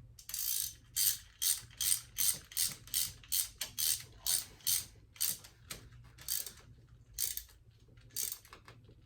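Ratchet wrench being swung back and forth, its pawl clicking in quick rasping strokes about two to three a second, slowing toward the end, as a pipe plug coated in thread sealant is run back into a coolant port on a small-block Chevy intake manifold.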